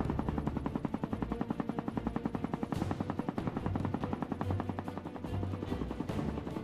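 Helicopter rotor blades chopping in a fast, even beat.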